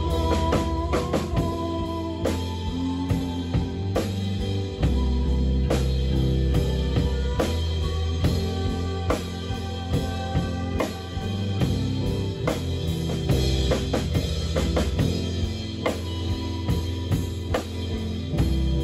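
Live band music: a drum kit keeps a steady beat with bass drum and snare, over a full low end and held pitched notes.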